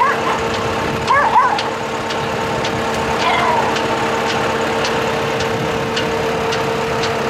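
Small dogs giving a few short high yelps, loudest about a second in and again about three seconds in, over the steady hum of the catamaran's diesel engine idling. A faint regular ticking runs beneath, about three ticks a second.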